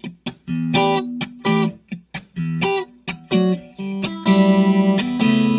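Guitar playing an intro riff of short, rhythmic chord stabs separated by brief gaps, then from about four seconds in a chord held and left ringing.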